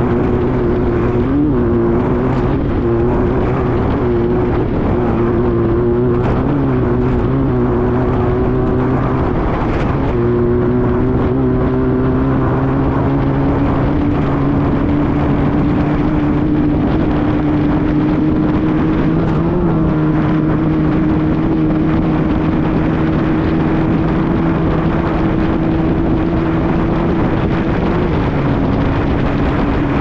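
Off-road race buggy's engine running at speed on a dirt course, its pitch dipping briefly about ten seconds in and then climbing slowly as speed builds, over constant wind and road noise.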